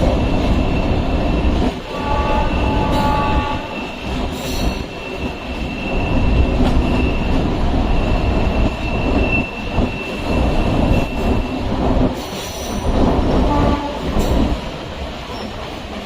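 Electric suburban train running on the track, with a steady rumble and rattle. A long, thin, high wheel squeal lasts through most of the middle. Short pitched tones sound about two seconds in and again near the end.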